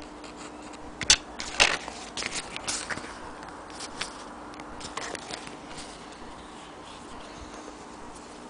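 Handling noises close to the microphone: two sharp knocks a little after a second in, then a run of smaller clicks and scrapes, over a steady low hum.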